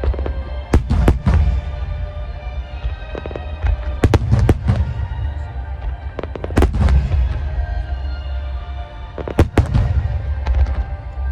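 Aerial fireworks shells bursting with sharp bangs in clusters, about a second in, around four seconds, near seven seconds and again from about nine and a half seconds, over steady music.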